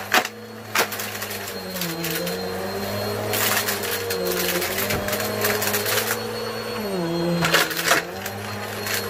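Shark vacuum cleaner running, its motor pitch dipping and recovering as the nozzle meets the mess. Debris is sucked up with sharp clicks and rattles, loudest around three and a half and seven and a half seconds in.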